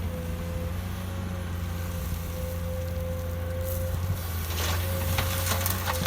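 Excavator running steadily: a low engine drone with a steady whine over it. A little over two-thirds of the way in, a run of sharp knocks and clatter begins.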